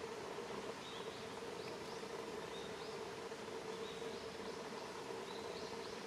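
Outdoor ambience: a steady hiss with a low hum, and faint short high chirps about once a second, some in quick pairs.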